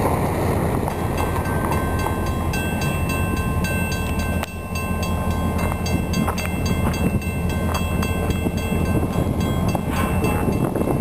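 Diesel locomotives running as they approach slowly, a steady low engine drone with thin, steady high tones over it.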